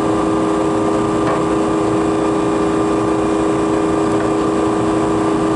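Walk-in freezer condensing unit running: a steady hum with several constant pitches from the refrigeration compressor and condenser fan. The condenser coil is plugged with dirt, and the head pressure is high.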